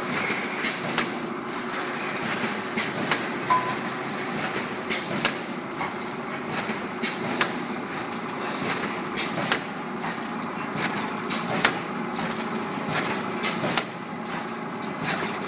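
JY CBP260 automatic Alu-PVC blister packing machine running: a steady mechanical hum and a faint high whine, with sharp clacks at a regular beat of a little more than one a second as its stations cycle.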